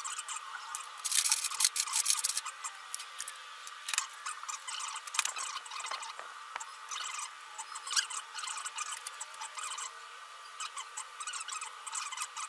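Small clicks, taps and scraping of hand work on metal engine parts, with a burst of dense scraping about a second in and a sharp click near the end.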